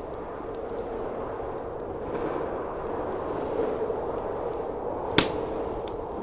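Blizzard wind blowing steadily with a low howl, over a fireplace crackling: scattered small crackles and one loud pop about five seconds in.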